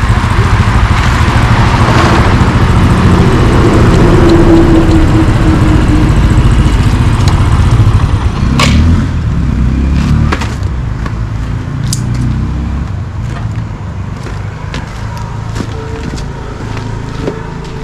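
Motorcycle engine running as the bike rides in and stands, dropping away about nine seconds in, followed by scattered clicks and knocks.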